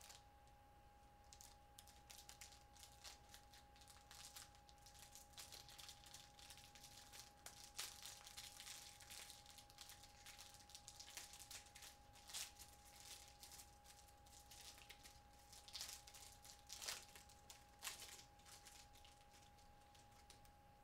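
Faint crinkling and light clicks of a trading-card pack's wrapper and cards being handled, a few slightly louder crinkles among them, over a steady faint hum.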